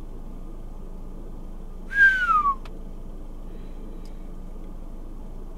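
A person whistles one short falling note about two seconds in, over a steady low background hum.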